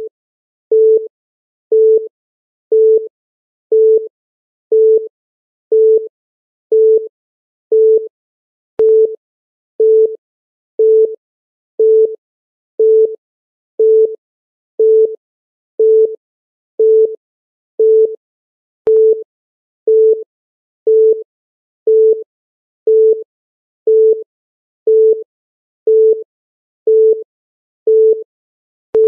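Countdown timer's electronic beep: one short beep at a single low-middle pitch every second, marking each second as the timer counts down.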